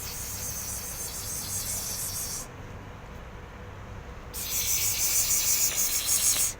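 Insects trilling with a high, rapidly pulsing buzz in two spells: one lasting about two and a half seconds, then a pause of about two seconds, then a louder spell that ends suddenly.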